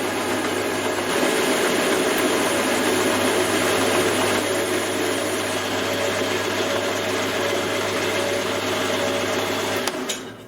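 Metal lathe running steadily while turning down a workpiece, its motor hum carrying a few constant tones; it stops suddenly near the end.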